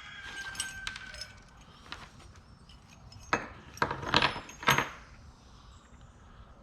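Small metal objects clinking and rattling as hands rummage through a box of loose hardware, with a few sharp clinks together about halfway through.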